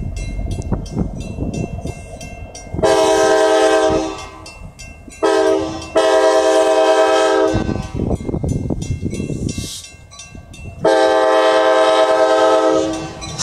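Kansas City Southern diesel locomotives' air horn sounding three blasts: the first about a second long, the next two about two seconds each. Between the blasts the locomotives rumble and their wheels click on the rails.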